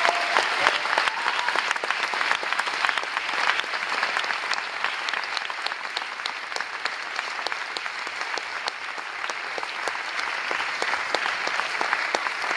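Theatre audience applauding: dense, steady clapping from many hands, easing slightly toward the end.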